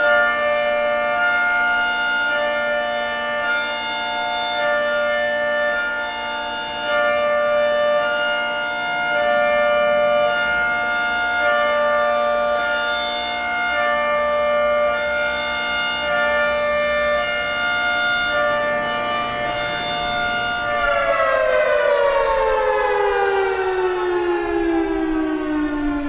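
Federal Signal 3T22A outdoor warning siren sounding its Hi-Lo signal, switching back and forth between a high chord and a low chord. About 21 seconds in, the alternation stops and the siren winds down, its pitch falling steadily as the rotor coasts to a stop at the end of the one-minute cycle.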